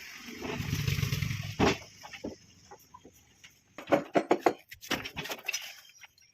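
A low rumble lasting about a second, then from about four seconds in a quick run of sharp knocks, some three to four a second, from construction work.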